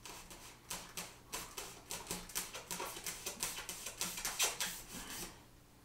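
Steak knife sawing back and forth through pink extruded polystyrene foam board, a quick run of short strokes, several a second, that stops about five seconds in.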